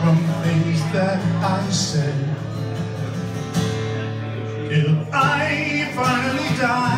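Acoustic guitar strumming a slow song's instrumental passage.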